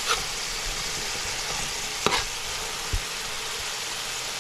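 Diced onion, tomato, garlic and scallions sizzling in oil in a metal pan, a steady hiss, while a metal slotted spoon stirs them, scraping and clinking sharply against the pan twice about two seconds apart.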